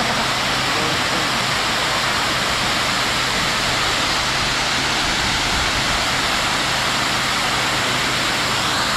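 Waterfall's falling water rushing in a steady, even noise.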